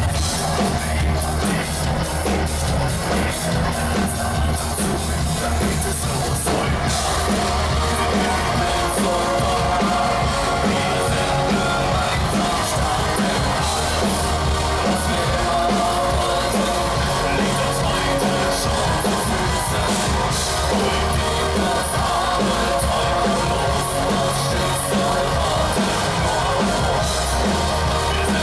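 Industrial metal band playing live, with a steady pounding beat, heavy distorted guitars and vocals. The sound thickens about six seconds in.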